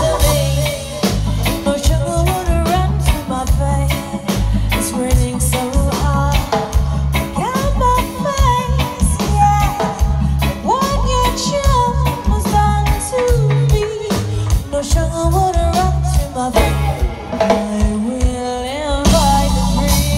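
Live reggae band playing, with a woman singing a melody over a steady repeating bass line and drum kit.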